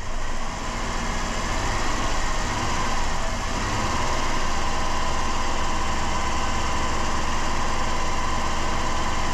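Dodge Caravan's 3.3-litre V6 running steadily while drawing air through an open vacuum line, a massive vacuum leak now that the cleaner feeding it has run empty. A steady high tone comes in about two seconds in.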